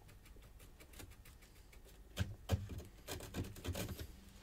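Small clicks, taps and rubbing as a loose fader is wiggled by hand to work it free of a synthesiser circuit board, with a few sharper clicks about halfway through and more in the last second or so.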